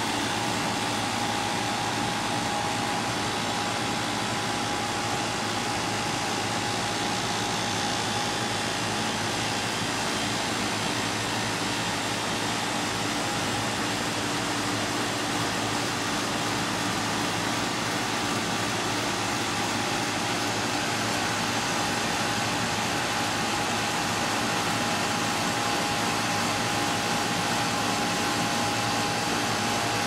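Outdoor condenser unit of a 1999 Arcoaire 3-ton central air conditioner with a Copeland scroll compressor, running steadily just after starting up. An even fan rush with a steady hum in it.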